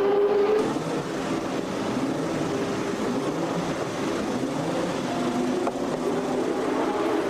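Formula 1 racing engines running on track, several at once at different pitches, with some notes sliding down as cars pass or lift off.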